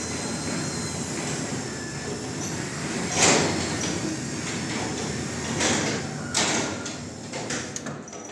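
Garage door travelling under its opener on a test run of newly set travel limits: a steady rolling rumble of the door along its track, with a sharp clack about three seconds in and a couple more later, easing off near the end.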